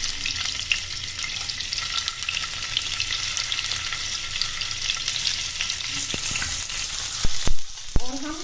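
Paneer cubes sizzling in about a tablespoon of hot oil in a non-stick frying pan, a steady crackling hiss as more cubes go in. A few dull knocks near the end.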